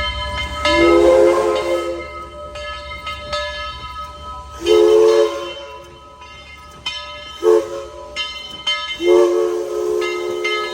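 Southern Railway 4501's Princeton three-chime steam whistle blowing a three-note chord in four blasts: a long one about a second in, two shorter ones, and a long final blast near the end.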